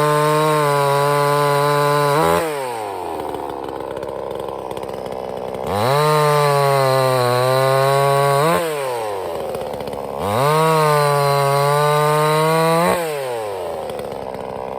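Sungel 58 cc two-stroke chainsaw engine revved to high speed and let back down to idle, three times, each high-speed spell lasting about two and a half seconds with the pitch sweeping down at each release.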